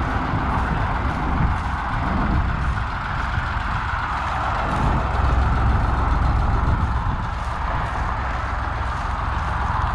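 Tractor engine running steadily, a little louder about halfway through.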